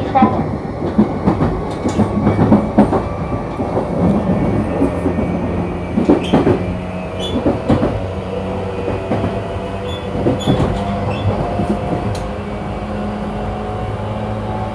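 Running noise inside a JR East E235 series electric train: a steady rumble of wheels on track under a steady motor hum, with scattered clicks and knocks from the wheels and car body, thinning out near the end.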